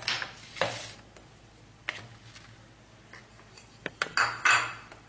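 Kitchen bowls and spoons being handled during mixing-bowl preparation: a few sharp clinks and short swishing noises, loudest at the start and again about four seconds in.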